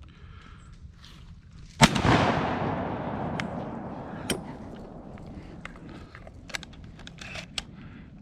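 A single shotgun shot about two seconds in, its report rolling away over the following few seconds, with a few faint clicks and knocks afterwards.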